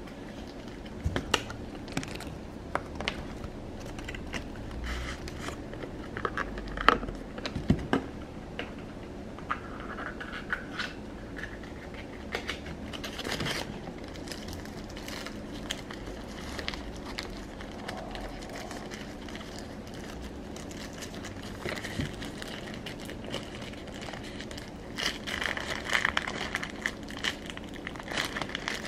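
Wrapping on a box of sweets crinkling and tearing as the box is opened, with scattered clicks and light knocks from handling it. The sounds grow busier near the end.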